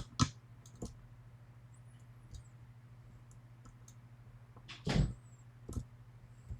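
Lock picks working a five-pin Yale 500 Plus lock fitted with spool pins: a few sharp metal clicks early on, then a longer scrape about five seconds in followed by another click.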